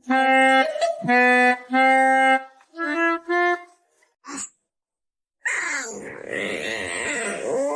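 A wind instrument, clarinet-like, plays several steady held notes. After a short pause, a noisier sound with a wavering pitch starts about five and a half seconds in.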